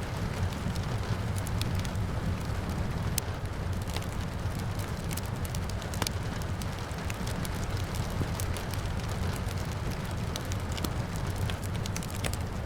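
Wood fire crackling, with frequent small pops and a couple of louder snaps, over a steady low roar of the flames and the even hiss of rain.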